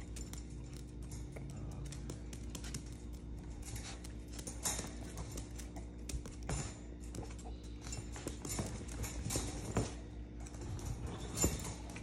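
Two Yorkshire terrier puppies scuffling in a wire crate: a loose, irregular patter of clicks and taps from claws, paws and the crate, over a faint steady hum.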